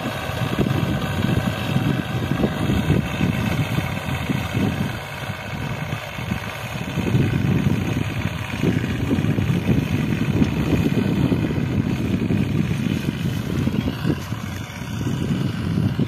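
Tractor engine running steadily as the tractor drives across the field pulling a boom sprayer, its level swelling and dipping slightly.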